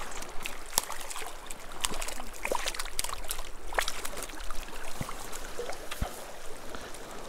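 Shallow stream running over gravel, with scattered small splashes and knocks as a small rainbow trout is netted in the water.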